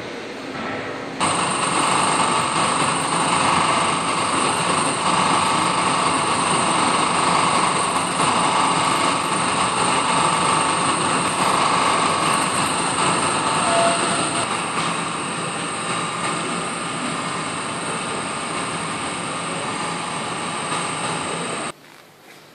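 Machine running with a steady, dense mechanical noise and a high whine; it starts abruptly about a second in and cuts off abruptly near the end.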